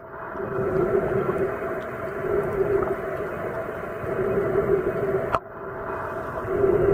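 Underwater ambience picked up by a camera held below the surface: a muffled, steady rush with a low hum that swells and fades every second or two. A single sharp click comes about five seconds in.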